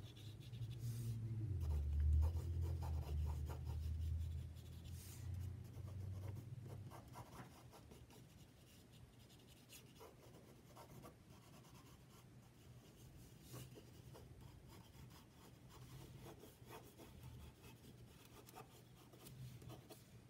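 Wooden graphite pencil sketching light, loose strokes on paper: a soft scratching and rubbing. A low rumble sits under the strokes for the first several seconds and fades out, leaving only the faint pencil strokes.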